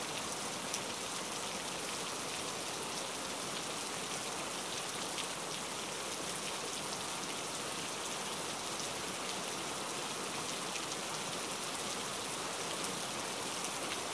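Steady rain-like hiss with faint scattered crackles, unchanging in level.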